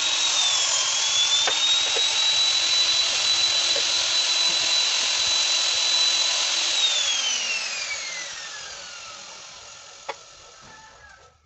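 Electric hand drill mounted in a homemade drill press, running with a steady high whine as it bores into a piece of wood. The pitch dips briefly under load in the first second. About seven seconds in it is switched off and the whine falls away as it spins down, followed by a click and a few light knocks near the end.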